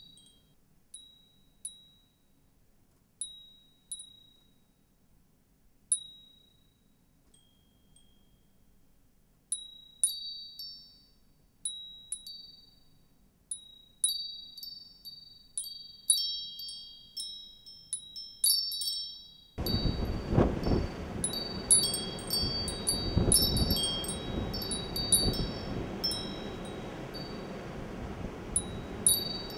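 Wind chimes tinkling. At first there are single light strikes a second or two apart, then they grow busier and overlap. About two-thirds of the way through, a loud rushing of wind and storm noise cuts in suddenly under the chimes.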